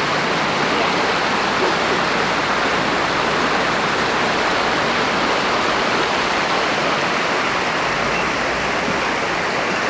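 Creek water rushing, a steady even sound with no letup.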